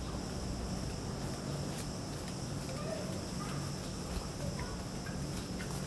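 Steady, high-pitched insect chorus of crickets, with a few faint short chirps and light clicks over a low hum.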